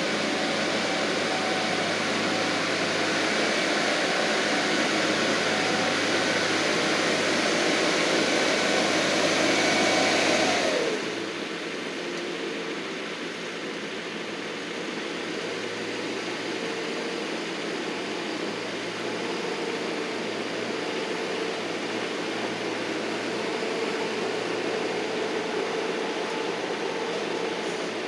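A heavy machine's engine running fast and steady, then about eleven seconds in its pitch slides down and it settles into slower, quieter running, as when it is throttled back.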